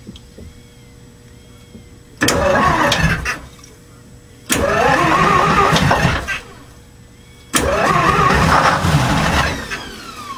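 Detroit Diesel 12V71 two-stroke V12 marine diesel being cranked on its starter in three short bursts of one to two seconds each, falling quiet between tries without staying running. A falling whine near the end as it winds down.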